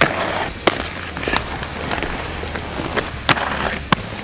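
Aggressive inline skates rolling on concrete, with several sharp clacks of skates hitting the rail or the ground, the first about two-thirds of a second in and two more close together near the end.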